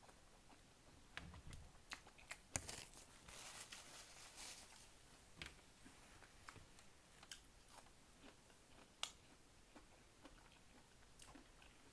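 A person biting and chewing food close to the microphone: scattered wet mouth clicks, with a denser, crunchier stretch of chewing about three seconds in.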